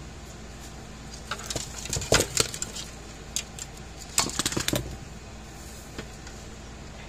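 Needle-nose pliers and small metal parts clicking and clattering against a wooden workbench as they are handled and set down, in two short bursts of knocks about two and four seconds in.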